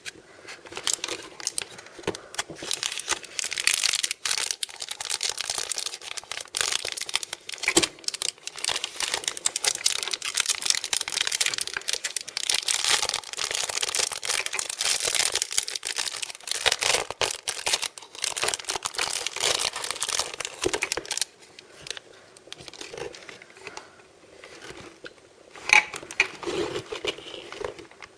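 Blind-bag packaging being crinkled and torn open by hand: dense crackling for about twenty seconds, then quieter handling with a couple of sharper knocks near the end.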